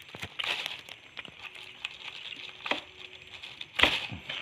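Hands handling a papery hornet nest comb on a plastic sheet: scattered small clicks and light crackles, with one louder knock near the end.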